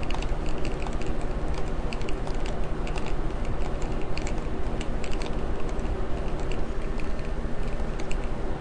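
Light, irregular clicking and tapping of a small screwdriver and fingers on the plastic underside of a Dell Inspiron 1525 laptop as its two tiny screws under the battery bay are undone, over a steady low hum.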